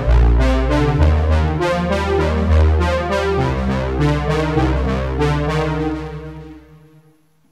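Background music with a steady pulse of notes over a low bass, fading out near the end.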